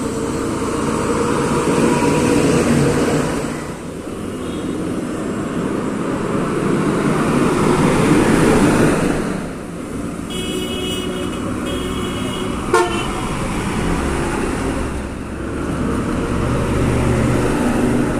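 Busy road traffic: trucks and other vehicles pass, their engine and tyre noise swelling and fading several times. A vehicle horn honks twice about ten seconds in, followed by a single sharp click. A deep engine rumble builds near the end as a truck approaches.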